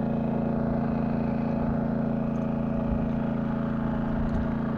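An engine running steadily at one even pitch, a continuous low drone with no change in speed.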